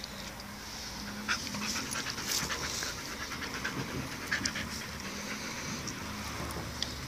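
Dogs panting close up, in quick short breaths.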